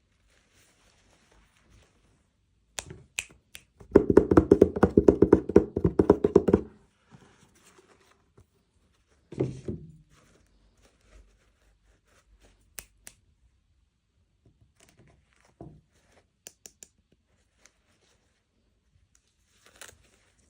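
Hands handling the small plastic packaging and pieces of a miniature toy. There are scattered taps and clicks, a loud run of rapid rattling clicks lasting about three seconds starting about four seconds in, and a single thunk about halfway through.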